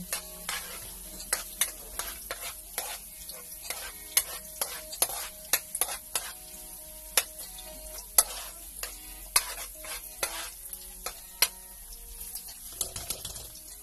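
Metal spatula scraping and tapping against a wok in quick, irregular strokes, stirring garlic and ginger frying in oil, over a steady sizzle. The garlic is being sautéed until it turns brown.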